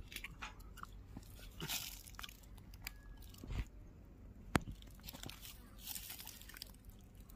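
Scattered light clicks, taps and rustling from a muzzle-loading percussion gun (a topidar) being handled and loaded, with one sharper click about four and a half seconds in.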